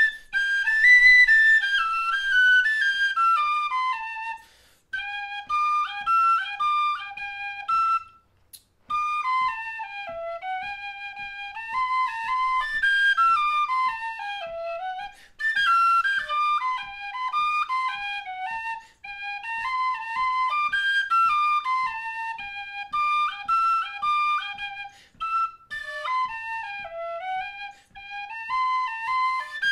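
Solo tin whistle with a brass body and green mouthpiece playing an Irish traditional tune in quick runs of notes, with short breaks for breath every few seconds.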